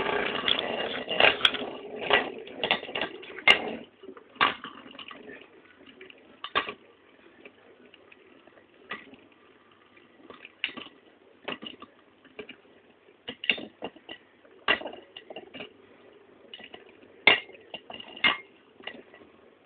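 Two Metal Fight Beyblades, Lightning L-Drago 100HF and Earth Eagle 145WD, spinning together in a stadium: a steady whirr of the tips on the stadium floor, louder for the first few seconds and then fainter, with irregular sharp clacks as the metal wheels strike each other.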